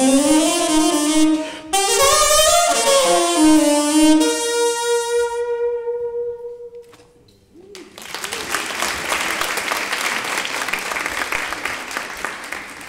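Tenor saxophone, a second-hand instrument restored by its player, playing a short melodic phrase that ends on a long held note fading out about six seconds in. After a brief hush, audience applause starts about eight seconds in.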